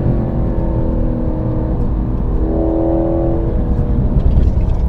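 Chevrolet SS's 6.2-litre LS3 V8 pulling hard on track, its note rising and falling with the throttle, over a heavy low road rumble.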